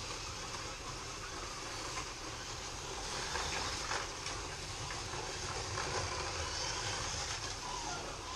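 Several Fly slot cars lapping a Scalextric track: a steady whirring of their small electric motors and wheels on the plastic track, a little louder in the middle as the cars pass close by.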